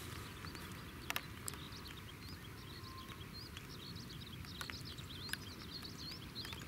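Small birds chirping steadily in the background, with a few sharp clicks and a low steady rumble underneath.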